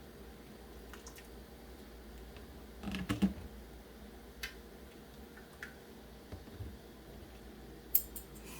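A few light clicks and taps of objects being handled in a quiet kitchen, with a small cluster of knocks about three seconds in.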